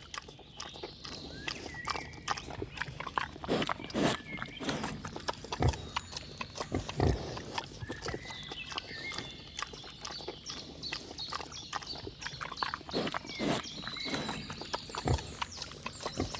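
Wild boars grunting, a string of short, irregular grunts and snorts.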